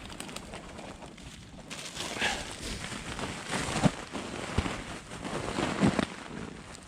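Footsteps squelching and rustling through wet, boggy marsh vegetation, uneven, with a couple of heavier thuds.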